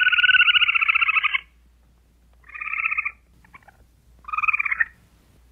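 Squirrel chattering: a rapid trilling call, first one long burst of about a second and a half, then two shorter bursts.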